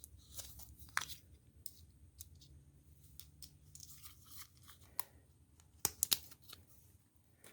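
Scattered small clicks and tearing sounds of a pack of new 608Z bearings being opened and handled by hand, a few sharper clicks among them.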